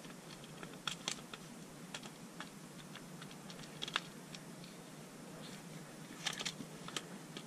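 Sparse light clicks and taps of plastic parts being handled as the clamshell housing halves of a DeWalt DCF887 impact driver are fitted back together, a little louder about a second in, near the middle, and twice near the end.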